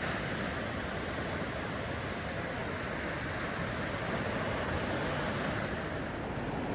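Ocean surf washing steadily onto a beach, a continuous noisy rush with no distinct wave crashes standing out.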